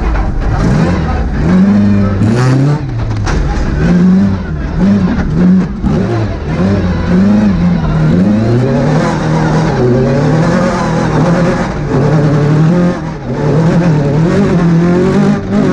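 Two-wheel-drive rally car's engine heard from inside the cabin at full stage pace, revving hard and climbing and dropping in pitch over and over as it is driven through the gears, with brief lifts off the throttle.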